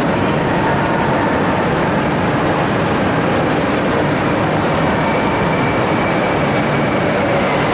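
Renfe Cercanías Civia electric train moving along the platform: a steady, loud rumble and hiss of wheels and motors, with a faint steady whine.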